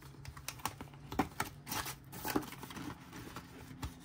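Paper banknotes and cash envelopes being handled, with irregular rustles and light clicks and taps as bills are slipped into an envelope.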